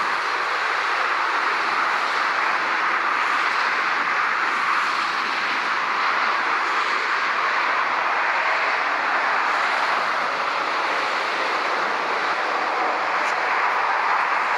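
Steady, even roar of distant jet engines and motorway traffic blending into one continuous noise, with no rise, fall or separate events.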